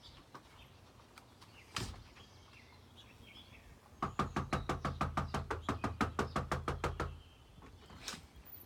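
Knuckles knocking on a door: a single knock about two seconds in, then a fast, steady run of about twenty knocks lasting some three seconds. It is a training cue meant to stir up the dog's excitement at the door.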